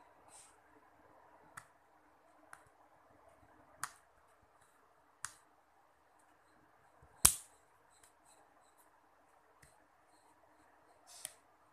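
Plastic snap clips of a Micromax A107 phone's housing clicking as the frame is pried apart by hand: about six sharp separate clicks, the loudest about seven seconds in, with a short scrape near the start and again near the end.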